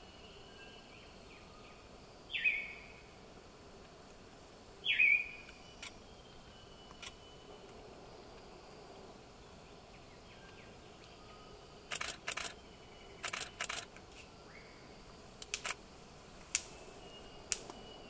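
Vogelkop superb bird-of-paradise calling: two loud, harsh notes a few seconds apart, each falling in pitch. These are followed in the second half by a run of sharp clicks, several in quick pairs. Faint insect and bird sounds run underneath.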